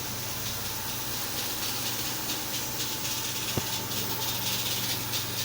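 Renault Duster 1.6 engine idling with a steady high hiss and a faint continuous whine from its accessory belt drive, and a single sharp click about three and a half seconds in. The belt noise has changed slightly after a belt-protector spray was applied but is still present.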